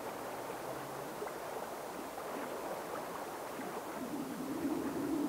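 Steady rush of flowing river water, even and unbroken; a faint low drone comes in about four seconds in.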